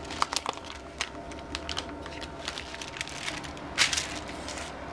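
Vacuum-sealed plastic meat bag being slit with a knife and peeled off a large steak, crinkling: a run of small crackles, with a louder rustle near the end.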